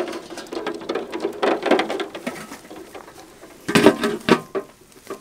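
Duck eggs clicking against each other and the aluminium pot as a hand stirs them in the water. The aluminium lid clatters onto the pot about four seconds in, the loudest knocks.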